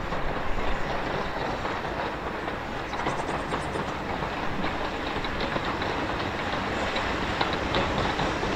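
USATC S160 steam locomotive hauling a passenger train past at speed, a steady rumble of the train with short wheel clicks over the rail joints from about three seconds in.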